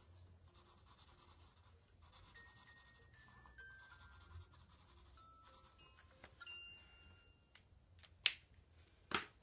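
Felt-tip marker rubbing on paper in short colouring strokes, faint, with soft chiming tones in the background. Two sharp clicks near the end are the loudest sounds.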